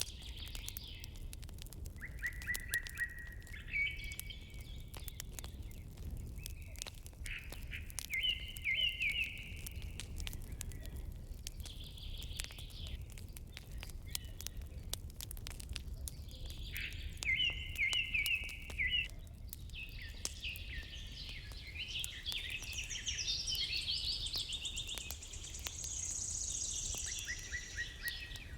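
Songbirds singing short, repeated trilled phrases every few seconds, more busily after about twenty seconds in. Beneath them run a steady low rumble and scattered sharp clicks or crackles.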